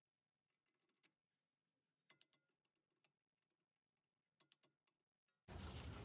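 Near silence with a few faint clicks and taps, in small clusters. Near the end a louder steady background noise cuts in suddenly.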